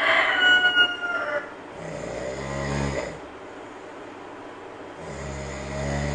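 A monkey snoring. The loudest part is a high whistling squeak in the first second or so. Two slow, low rumbling snores follow, about three seconds apart.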